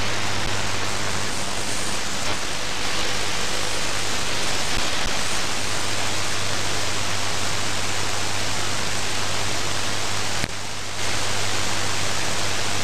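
Shortwave static from a FLEX-3000 software-defined receiver tuned across an empty stretch of the 22 m band: a steady even hiss with a low hum under it, and no station audible. The hiss dips briefly about ten and a half seconds in.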